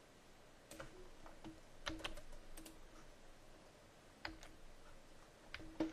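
Faint computer keyboard and mouse clicks, about a dozen short, separate clicks at an uneven pace.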